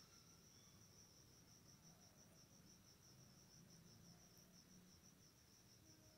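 Faint cricket trilling, one continuous high, finely pulsing note.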